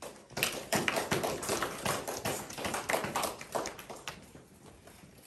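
A small audience clapping, many sharp irregular claps that die away about four seconds in.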